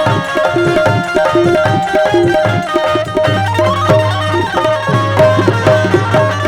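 Qawwali band's stage sound check: tabla playing a quick, steady beat under an instrumental melody, with a low bass note held from about three seconds in.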